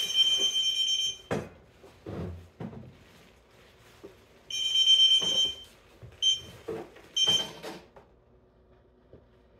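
KingSong 16X electric unicycle sounding its high-pitched alarm beep in separate beeps: a long one at the start, another about four and a half seconds in, then two short ones, with a few low knocks in between as the wheel is moved. The owner puts the alarm down to the wheel being in locked mode.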